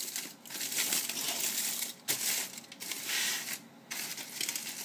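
Aluminium foil crinkling and crumpling as layers are peeled back from a foil-wrapped loaf, in irregular bursts with a few short pauses between handfuls.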